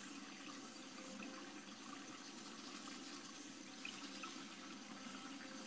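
Faint, steady hiss of running hot water, stopping at the very end.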